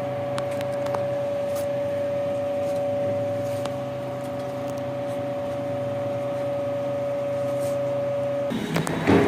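Steady machine hum with a high held tone over a lower drone. It cuts off abruptly near the end.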